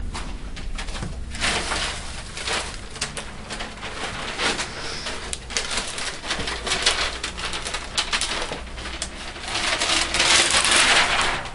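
Rustling and knocking as bags and filming kit are handled and the handheld camera is moved about, with a louder stretch of rustling near the end.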